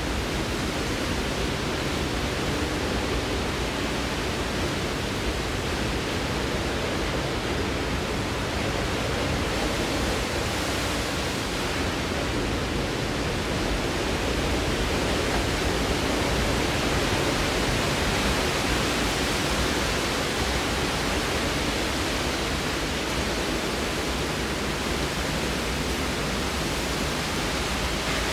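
Hurricane Irma's eyewall winds blowing: a steady, dense rush of noise that swells slightly through the middle.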